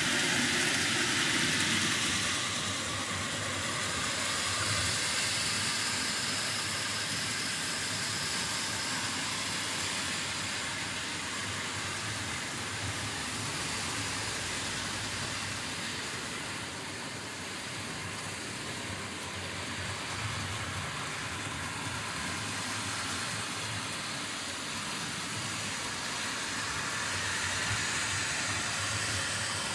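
OO gauge model trains running round a wooden track helix: the steady running noise of small electric motors and wheels rolling on the rails.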